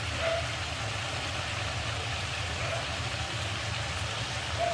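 Chilli chicken cooking in a kadhai on a stove burner: a steady low hum under a soft, even hiss, with no stirring.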